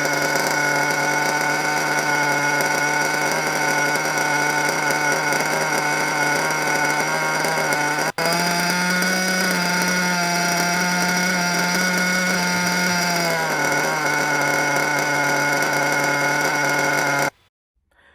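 Nitro RC engine idling with a surging idle: the engine speed sags, climbs again about eight seconds in and sags back a few seconds later, never settling. The sound cuts off shortly before the end. An idle that bounces like this is most likely a leaking front bearing letting the engine suck air.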